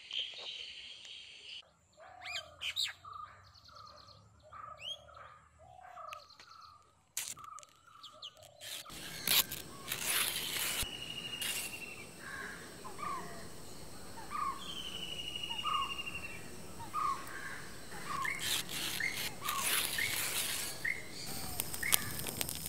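Birds calling. At first there are sparse calls over a quiet background. From about nine seconds in there is a busier outdoor ambience, with one bird repeating a short note about once a second and a few longer trilled calls over it.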